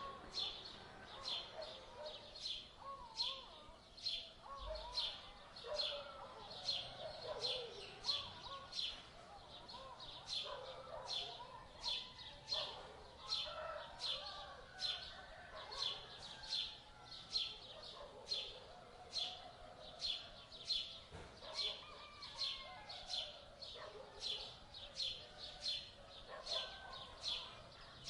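Birds calling: a short high chirp repeated steadily about twice a second, over other birds' lower warbling and whistled calls.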